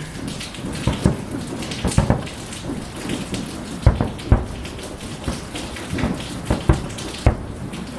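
Distant fireworks going off: a string of irregular booms and bangs over a steady crackling hiss.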